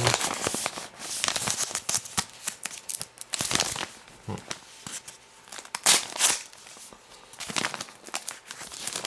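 Hands unpacking a shipping box: scratchy rustling and crinkling of packing peanuts and wrapping, with tearing, in irregular bursts, the loudest about six seconds in.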